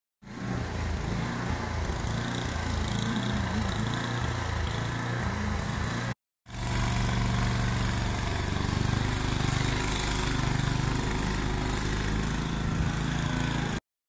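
A snowblower's small engine running steadily. The sound cuts out briefly about six seconds in, and a similar steady engine sound picks up again.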